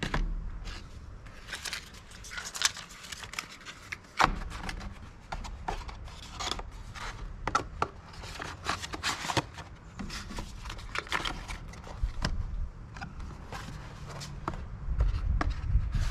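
Irregular clicks, taps and scrapes of rigid packaging boxes being handled and set down on a wooden slatted table. A low rumble comes in near the end.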